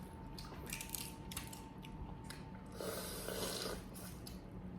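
Boiled crawfish being peeled and eaten close to the microphone: small clicks and cracks of shell, with a longer noisy stretch about three seconds in.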